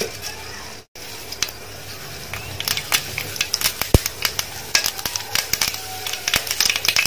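Mustard seeds sizzling in hot oil and beginning to splutter, with sharp pops that come faster toward the end: the oil is hot enough for tempering.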